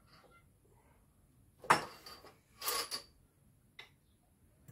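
Metal fork parts and tools being handled on a workbench: a sharp metallic clink about a second and a half in with a short rattle after it, a second brief rattle a moment later, and a faint tick near the end.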